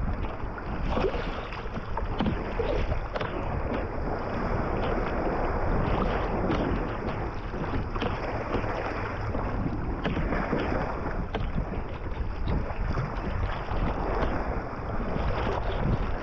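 Choppy sea water splashing and slapping against a sea kayak, with wind buffeting the microphone, steady and ongoing with many small splashes.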